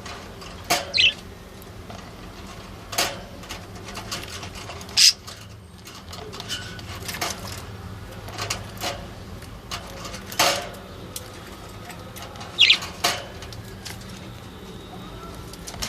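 Small birds chirping: short, scattered calls, a few of them sharp high chirps, over a steady low hum.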